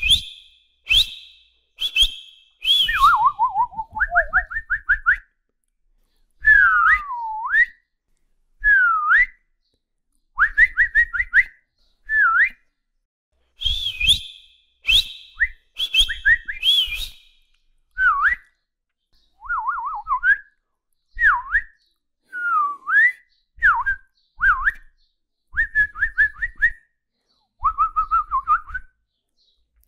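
Whistling in a string of short calls meant to catch a dog's attention: quick rising and falling glides, warbles and fast trills, each a second or so long with short gaps between. At the start and again about halfway through come higher two-tone chirps with sharp clicks.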